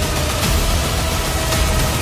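Background music with sustained tones over a steady low bass.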